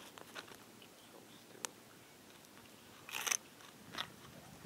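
Quiet stillness with a faint steady background, broken by a few sharp pops, the clearest about one and a half seconds in, and a short crunching burst about three seconds in.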